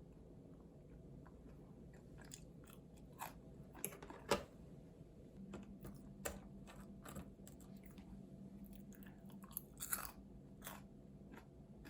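Close-up eating sounds: food being bitten and chewed with irregular crisp crunches, the loudest about four seconds in and near ten seconds.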